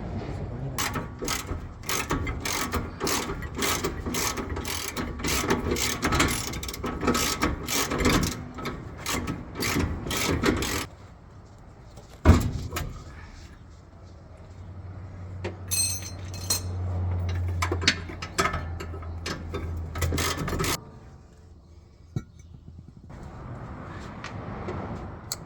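Hand tools working on a car gearbox's bolts: a ratchet wrench clicking in quick strokes, then one sharp metal knock. Later comes a low steady hum with scattered clicks.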